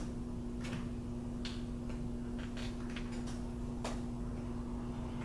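Computer keyboard typing: scattered, irregular key clicks over a steady low hum.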